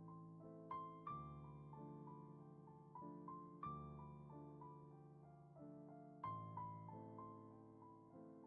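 Soft solo piano background music, slow gentle chords with single notes between them, each note fading after it is struck.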